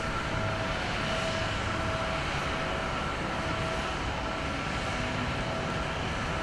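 Jet airliner engines running: a steady rush of noise with a thin high whine on one pitch that comes and goes.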